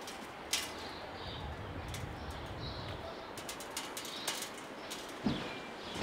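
Faint small-bird chirps outside, with scattered light clicks and a soft knock near the end as metal meat hooks are hung on a steel wire.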